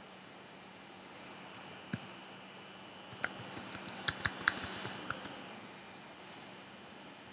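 Computer keyboard typing, faint: a single click about two seconds in, then a quick run of about a dozen keystrokes over roughly two seconds.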